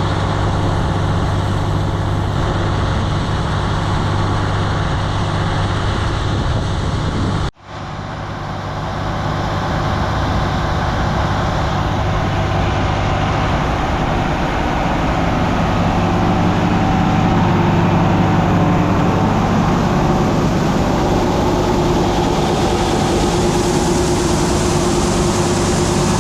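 Heavy farm machinery engine running steadily, with an abrupt cut about seven and a half seconds in, after which it picks up again.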